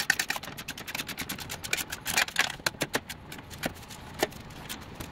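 Irregular sharp metal clicks and clinks of a hand wrench tightening the lower control arm's inner bushing bolt on a car's front suspension. The clicks are thick for about the first three seconds, then come singly a few times.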